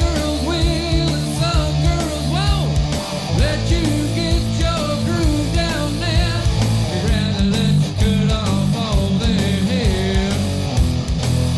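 Rock background music with electric guitar, a steady beat and a sung vocal line.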